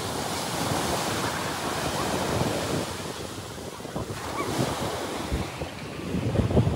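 Sea surf breaking and washing up the beach in a steady rush, with wind buffeting the microphone in low rumbles, most strongly near the end.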